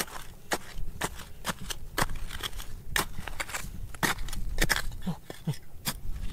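Irregular sharp knocks and scrapes, about two or three a second: a hand tool chipping and digging at rock and gravel in an underground placer gold mine.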